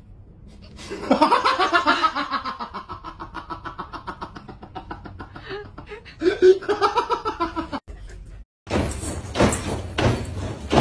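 A person laughing hard in a long run of quick pulses, then a second, shorter burst of laughter. After a sudden cut, a burst of scraping, clattering noise.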